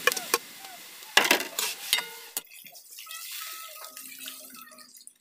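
Coconut milk poured from a bowl into a wide metal wok of meat, splashing, with a few clinks of the bowl on the pan at the start. The pour is loudest for about a second from just over a second in, then goes on more quietly.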